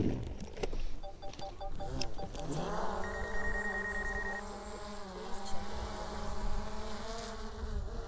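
DJI Air 2S quadcopter drone's propellers spinning up with a rising pitch about two and a half seconds in, after a few clicks and short beeps, then a steady buzzing whine as it lifts off and hovers.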